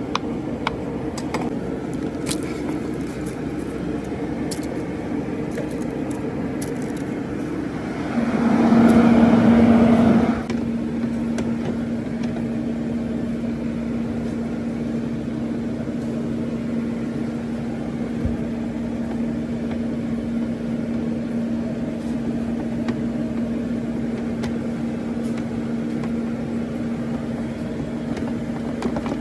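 Steady machine hum with a few faint clicks. About eight seconds in, a louder rushing noise lasts about two seconds; after it, a steady low tone in the hum is stronger.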